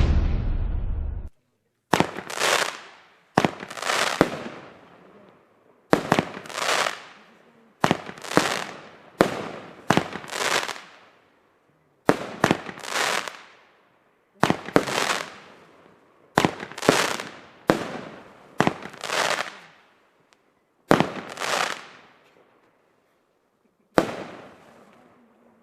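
Weco Höllenblitz fireworks cake box firing its shots in quick succession: about twenty sharp reports, often two or three close together, each trailing off in a hiss that dies away within about a second.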